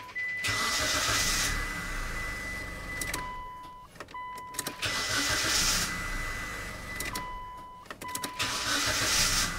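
A 2008 Mitsubishi Lancer's four-cylinder MIVEC engine starting up on its newly replaced starter motor and running, with a steady thin electronic tone alongside.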